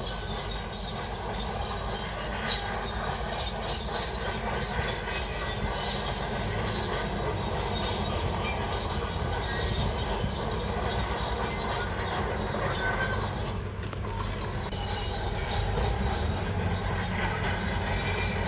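Shantui DH17 bulldozer at work: its engine runs steadily under a constant clatter and high squeal of steel tracks.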